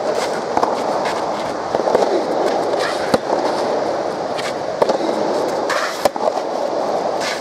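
Soft tennis rally: sharp cracks of rackets striking the soft rubber ball, a serve at the start and further hits about three, five and six seconds in, over a steady background din.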